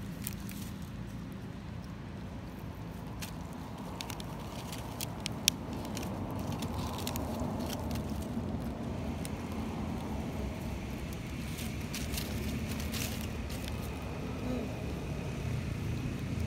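Steady low rumble of outdoor background noise, with scattered light clicks and one sharp click about five and a half seconds in; a faint high steady tone comes in near the end.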